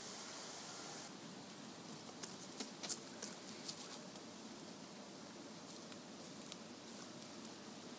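Faint steady background hiss with scattered small, sharp clicks and ticks, most of them bunched between about two and four seconds in.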